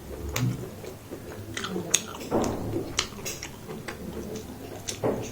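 A person chewing and biting food close to the microphone, with frequent short mouth clicks and smacks.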